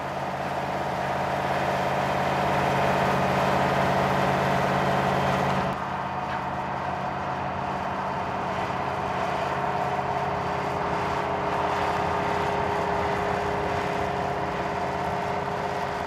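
1991 Holmer KRBS self-propelled sugar beet harvester running steadily as it lifts beet: its 14.6-litre Mercedes-Benz V8 engine together with the lifting and cleaning machinery. The sound drops a little and changes about six seconds in.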